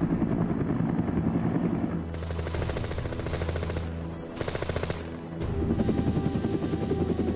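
Helicopter door-mounted machine guns firing in rapid, sustained bursts, with the steady drone of a helicopter underneath. The firing breaks off briefly twice, around the middle.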